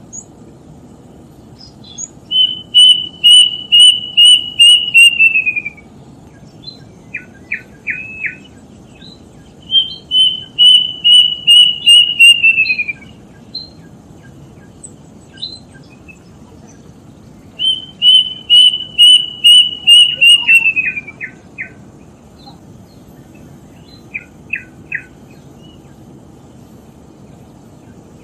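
A bird calling: three phrases, each a quick run of about ten clear whistled notes on one pitch that slide downward at the end, with a few short sharp notes in between.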